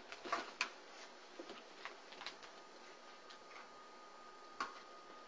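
Four-week-old German Shepherd puppies playing: light, irregular taps and scuffs of paws and claws, with a few sharper clicks, the loudest about a third of a second in and another near the end.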